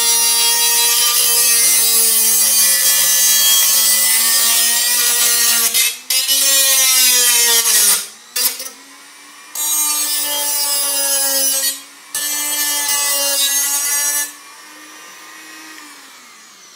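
Black+Decker RT18KA rotary tool with a small cutting disc cutting into a tin can: a steady motor whine under a loud, harsh hiss of the disc grinding the metal, broken off briefly a few times as the disc comes out of the cut. For the last couple of seconds the cutting stops and the tool runs on alone, much quieter.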